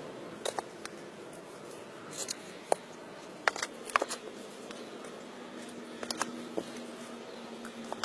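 Mason's trowel scraping and tapping on concrete paving blocks and wet mortar: a string of short, sharp clicks and scrapes at uneven intervals.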